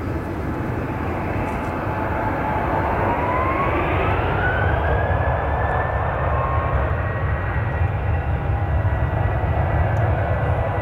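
Boeing 737-800's CFM56-7B turbofan engines spooling up to takeoff thrust. A rumble grows louder while an engine whine rises in pitch a couple of seconds in, then holds steady at a higher pitch.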